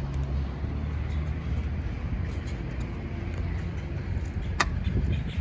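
Gilera VC 70 small motorcycle engine idling steadily, with a single sharp click about four and a half seconds in.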